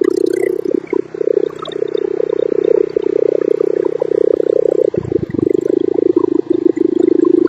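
Wood chipper's small gasoline engine running steadily now that its loose spark plug has been reattached. It briefly falters about five seconds in and then picks back up.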